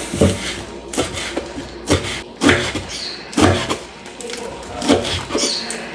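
Knife slicing through a rolled bundle of lettuce leaves on a wooden cutting board: a string of irregular crisp cuts, each ending in a tap of the blade on the board, about seven or eight in all.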